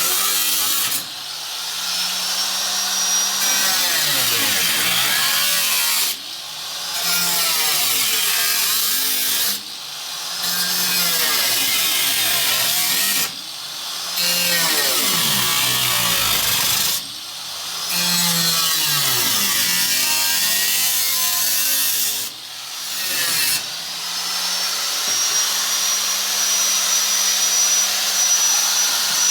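Handheld electric power tool cutting into the car's rusty sheet-metal floor pan. The motor's pitch sags under load and recovers again and again, with a harsh, hissy scream of metal. It goes in several stretches that break off and restart, and runs steadier near the end.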